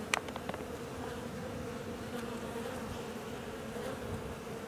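Honeybees buzzing steadily as they fly around and out of the hive, a colony out on winter cleansing flights. A few faint clicks come right at the start.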